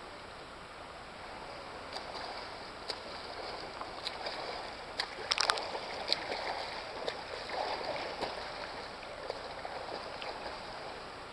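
Front-crawl swimmer's arm strokes splashing through pool water, over a steady wash of water noise; the splashes are loudest about five to six seconds in as the swimmer passes close by.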